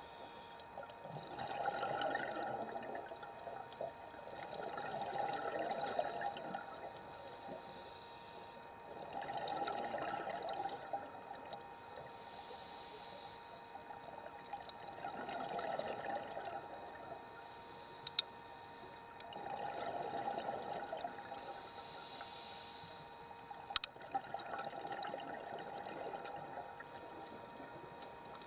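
Scuba regulator breathing heard underwater: six bursts of bubbling exhaust, one about every four to five seconds, with a fainter hiss of inhaling between some of them. Two sharp clicks in the second half.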